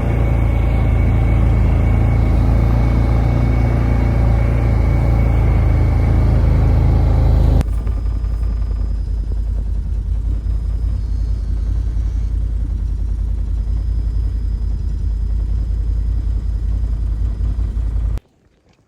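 A vehicle engine running with a heavy low rumble, as if heard while driving. The sound changes suddenly about eight seconds in to a quieter, noisier rumble, and it cuts off just before the end.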